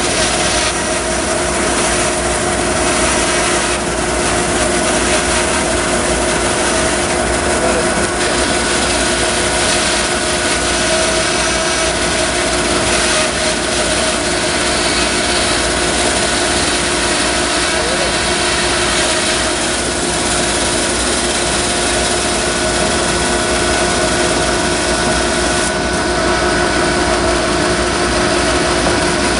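Bandsaw running steadily with a constant hum and whine as its blade rips lengthwise through a long log.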